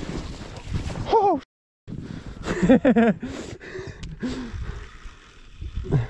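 A man's wordless, excited vocal sounds, a falling cry and then a wobbling groan-like call, while he clambers through snow to land a hooked bass, over rumbling wind and handling noise on the head-mounted microphone. The sound cuts out completely for about half a second between the two calls.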